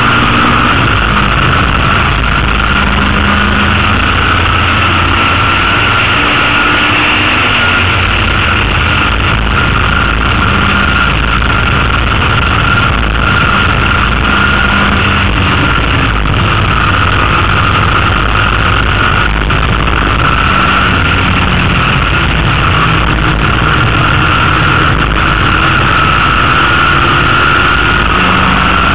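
Austin-Healey Sprite's A-series four-cylinder engine running hard at racing speed, heard from the cockpit. It is loud and continuous, its pitch wavering slightly as the revs rise and fall through the corners.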